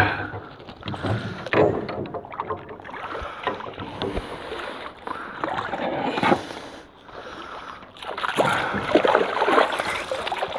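A small hooked trout splashing and thrashing at the surface beside a rowboat as it is reeled in and lifted out. The splashes come in irregular bursts, the loudest about six seconds in and again near the end, among a few knocks in the boat.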